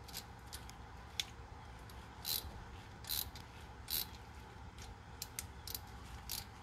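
Hand ratchet driving a thread tap into a bolt hole in an aluminum lower intake plenum: faint scattered clicks, with three louder short rasps of the ratchet about a second apart in the middle.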